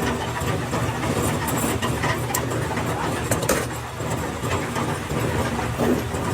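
Factory machinery running with a steady low hum, with occasional sharp clicks and knocks.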